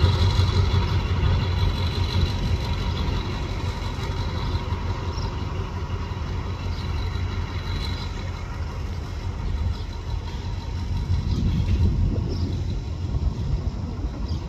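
Diesel-electric locomotive engines running with a steady low rumble as two coupled locomotives move slowly along the track, with a few faint short high squeaks.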